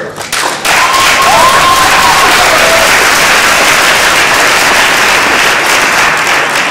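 Audience applauding loudly, starting about half a second in, with one voice in the crowd whooping, its pitch gliding up and down, about a second into the clapping.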